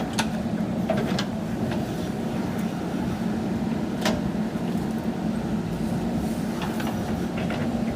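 JCB backhoe loader's diesel engine running steadily, with a few short sharp knocks, the sharpest about four seconds in.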